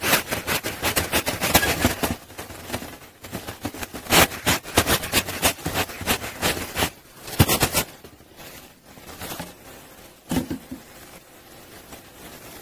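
A bee smoker being packed with leaves and handled on a wooden table: bursts of rustling and scraping, with a dull knock a little after ten seconds in.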